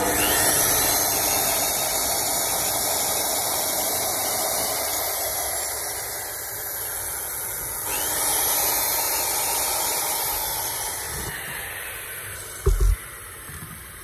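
A steady, loud rushing hiss that eases off over the last few seconds, with two short knocks near the end.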